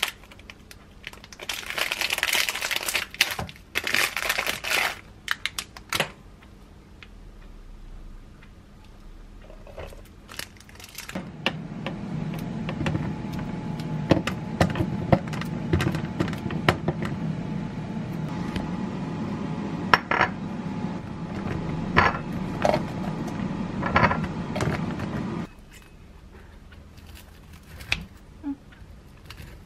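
Plastic wrapping on a packaged rice cake crinkling in bursts during the first few seconds. Later a steady low hum from a kitchen appliance runs for about fourteen seconds, with clinks and clicks of kitchen handling over it, and cuts off suddenly.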